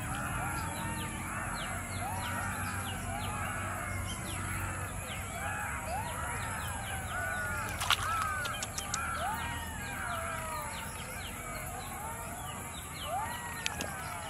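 A dense chorus of many overlapping animal calls, each a short rise-and-fall in pitch, over a steady high-pitched hum. A sharp click about eight seconds in and a few smaller ticks near the end.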